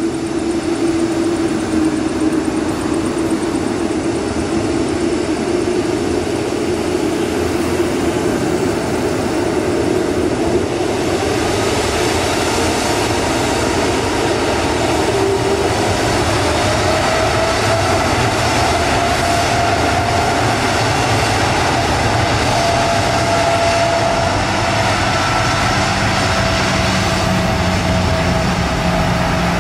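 Boeing 747 freighter's jet engines powering up for the takeoff roll: a loud, steady jet roar that swells and brightens about ten seconds in, with a whine that rises and then holds a steady tone.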